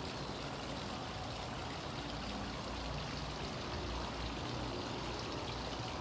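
Steady rushing background noise with no breaks or sudden events, like flowing water.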